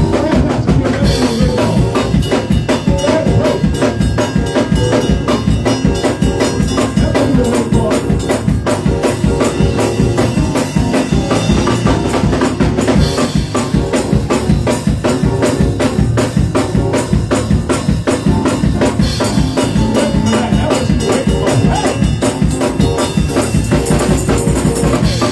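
Live band playing a fast, driving beat on drum kit with tambourine and bass, with no singing.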